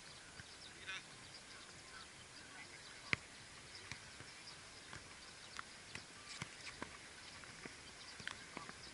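A football kicked hard on an outdoor futsal pitch gives one sharp knock about three seconds in. Lighter, scattered knocks of ball touches and footsteps follow. Faint distant voices call in the background.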